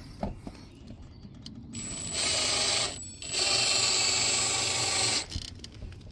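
Power drill/driver running in two short bursts, about a second and then about two seconds, with a steady high whine, as it drives the mounting screws of a water inlet valve tight.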